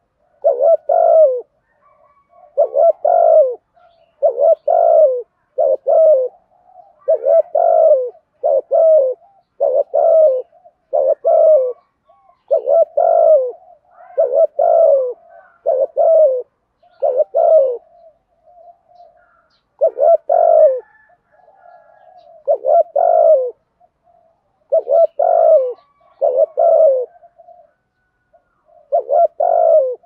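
Spotted dove cooing over and over in short low phrases, one to two seconds apart, with a couple of brief pauses. It is a decoy bird's provoking coo, used to lure wild doves.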